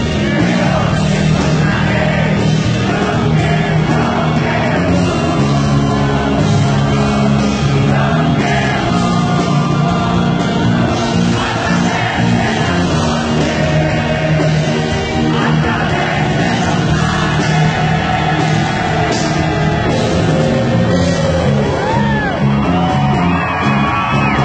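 Live gothic rock band playing: a male lead vocal sung into a microphone over keyboards, guitar and drums, heard from the audience in a hall. Some crowd shouts come in near the end.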